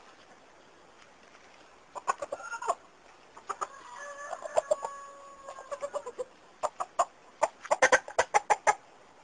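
Rooster calling: a short squawk about two seconds in, a drawn-out call near the middle, then a quick run of sharp clucks near the end.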